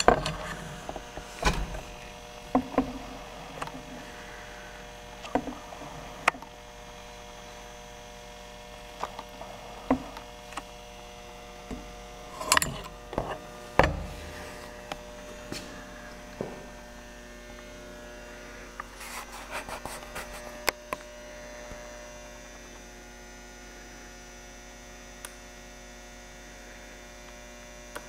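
A steady electrical hum, with scattered sharp clicks and knocks on top of it, a cluster of them about two-thirds of the way through.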